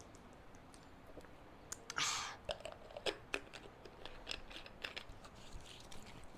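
Faint crackling and clicking of a thin plastic water bottle being handled as it is drunk from and its cap worked, with a short rush of noise about two seconds in.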